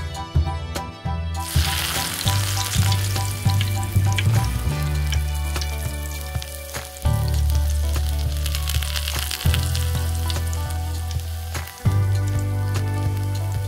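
Minced meat sizzling in hot oil in a tiny clay pot, the frying hiss starting about a second and a half in and holding steady, with small clicks of a spatula stirring the mince.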